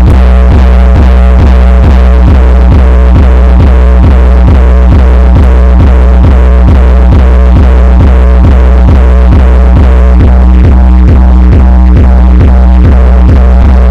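Electronic dance music with a heavy, constant deep bass and a fast, even beat of about three a second, played very loud through a handmade 200-watt mono amplifier as a bass sound test.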